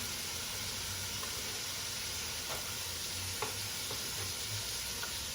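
Garlic and onion frying in olive oil in a pot, a steady sizzle, with a few faint light clicks of a utensil.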